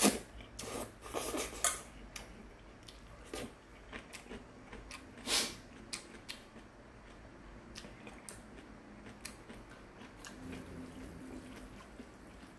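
Noodles slurped and chewed, with metal chopsticks clicking against a stainless steel bowl. A louder slurp comes right at the start and another about five seconds in, with scattered light clicks between.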